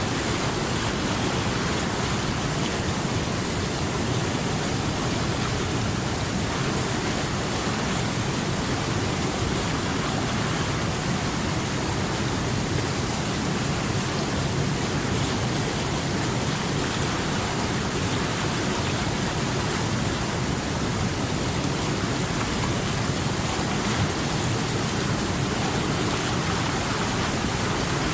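Steady rushing water, a stream flowing over rocks, an even hiss that doesn't change.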